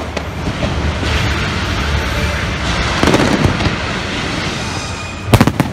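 Fireworks going off in a continuous crackle and rumble, with a louder burst about three seconds in and a quick cluster of sharp bangs near the end.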